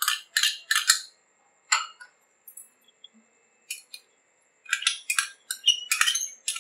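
A spoon clinking and scraping against small glass bowls as paste is scraped out of them. There is a quick run of clinks in the first second and another in the last two seconds, with a few single clinks between.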